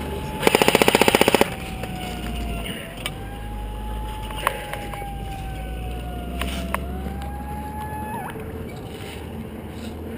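A short burst of full-auto fire from an airsoft rifle near the start, then a siren wailing, slowly rising and falling several times before cutting off abruptly. A few single shots crack in between, over a low engine rumble.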